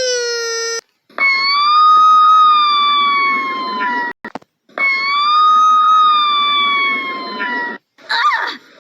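A cartoon girl's long, high-pitched voiced yawn, heard twice, each about three seconds long, with a breathy rush beneath; the pitch rises slightly and then sinks towards the end of each. A wavering voice sound follows near the end.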